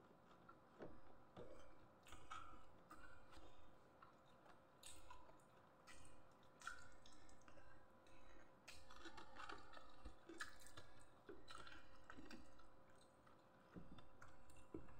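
Faint chewing of food, with small clicks coming at irregular intervals.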